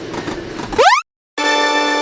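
Cartoon sound effects: a train's running rumble ends in a quick rising swoop, then after a brief silence a steady horn-like chord sounds and holds.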